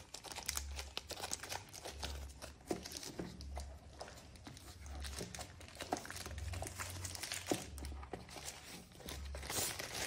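Thin polyethylene plastic sleeve crinkling and crackling in irregular bursts as it is pulled off a drawing tablet by hand. A faint low hum pulses on and off about once a second underneath.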